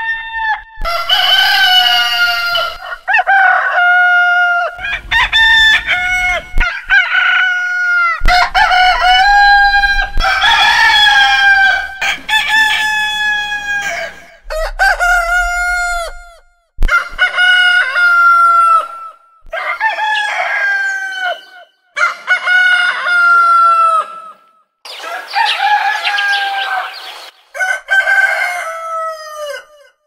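Roosters crowing one after another, about a dozen loud crows packed back to back. Each is a drawn-out call that drops in pitch at its end, with abrupt cuts between them.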